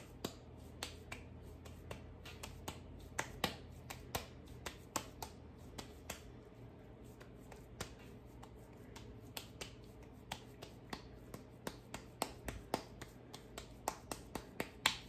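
Hands patting and pressing a cheese-filled ball of arepa corn dough between the palms, a steady run of soft, uneven slaps a few times a second as the dough is flattened into a round patty.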